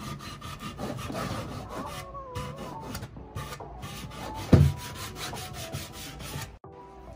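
Sandpaper on a hand sanding block rubbed back and forth over the edge of a bare wooden 2x6 board in quick repeated strokes, smoothing and rounding it. One louder thump about halfway through.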